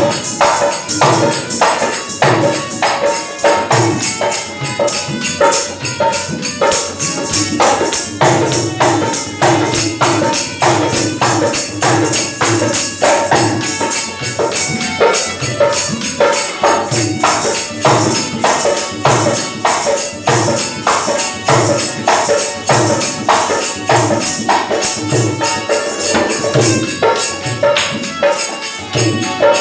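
Dholak drum played in a steady, driving rhythm, with jingling percussion over it, as accompaniment for folk dancing.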